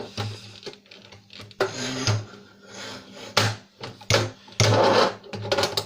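Plastic front panel of a DVD player being pried and worked loose by hand: irregular scraping, rubbing and clicking knocks.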